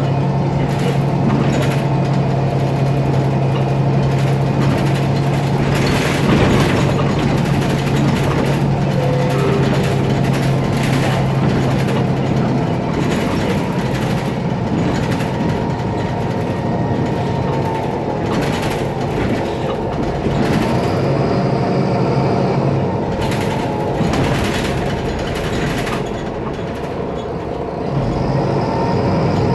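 Mercedes-Benz Citaro O530 city bus running, its OM906LA turbo-diesel engine giving a steady drone whose pitch shifts about twelve seconds in, with scattered short rattles and hisses from the bodywork and parts. The uploader takes the turbo sound for a faulty turbocharger and names a noisy part.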